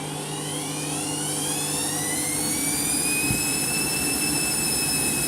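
Candy washing machine spinning up: the motor and drum whine climbs steadily in pitch and loudness, then levels off at spin speed near the end. A single low knock about three seconds in.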